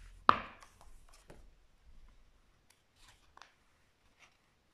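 A hardcover picture book being opened and its pages handled: a sharp snap of the cover about a third of a second in, then soft paper rustles and light ticks.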